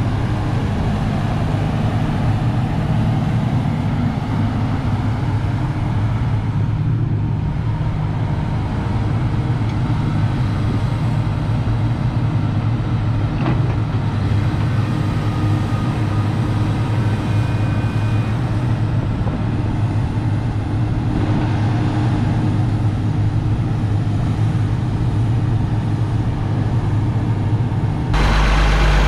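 Komatsu PC300-8M0 hydraulic excavator's diesel engine running steadily with a low, even hum. Near the end the sound turns louder and deeper, heard close up at the engine.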